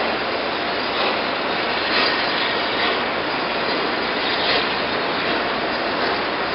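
Steam locomotive working a train of coaches, heard as a steady roar with a few faint beats in it.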